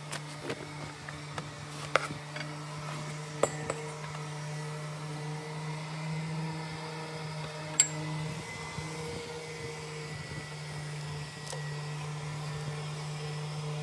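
Steady hum of an electric motor, such as a power tool or workshop vacuum, running without a break, with a few short sharp knocks, the sharpest nearly eight seconds in.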